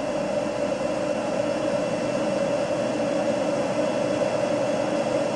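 Steady background hiss with a constant hum. No tool or motor is running.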